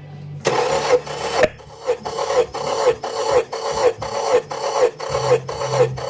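A 2018 Honda CR-V's four-cylinder engine being cranked over by its starter motor for a compression test on cylinder 1. It makes a rhythmic rasping pulse about two and a half times a second, starting about half a second in.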